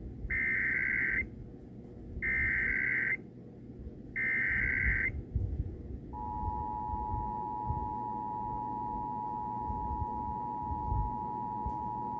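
Emergency Alert System test opening: three buzzy digital data bursts of about a second each, a second apart (the SAME header), then about six seconds in the steady two-tone EAS attention signal starts and holds.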